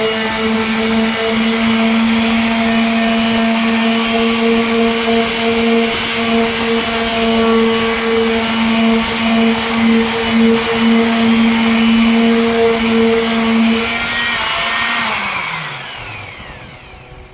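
Electric sander running at a steady pitch, with a hiss of sanding over its hum; about 15 seconds in it is switched off and the motor winds down, its pitch falling.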